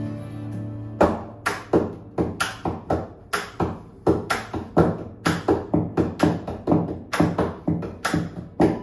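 A strummed acoustic guitar chord rings out and fades. About a second in, a steady rhythm of sharp taps and knocks begins, about three or four a second with louder accents: hands beating on the acoustic guitar bodies as percussion.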